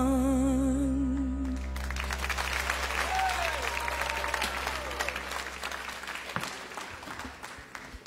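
A singer holds the final note of the song with vibrato over a sustained piano chord, and it stops about a second and a half in. A studio audience then breaks into applause, which slowly dies away.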